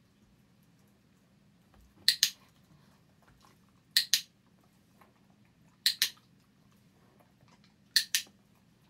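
Dog-training clicker pressed four times, about every two seconds, each press a sharp double click. The clicks mark the moments when the golden retriever puppy lies down, for a food reward.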